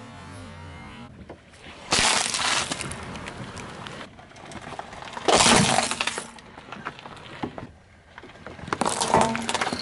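Small objects crushed one after another under a car tyre: three sudden bursts of cracking and crunching, about two, five and nine seconds in, the middle one the loudest, with a glass-like breaking sound. Among the things crushed are a plastic toy clock and a toy figure.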